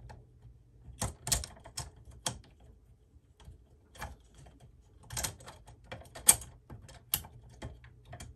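Irregular sharp clicks and knocks as the Z-axis top bearing bracket is worked over the end of the lead screw and seated against the Ender 3 V2's frame rail. The loudest click comes about six seconds in.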